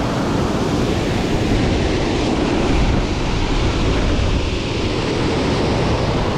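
Strong wind buffeting the microphone: a loud, steady rumbling rush with no break.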